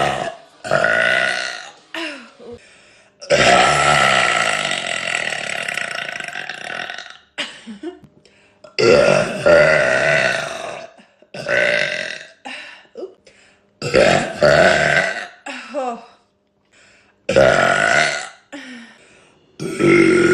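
A woman burping loudly again and again, about seven burps a second or two apart, the longest drawn out for about four seconds some three seconds in.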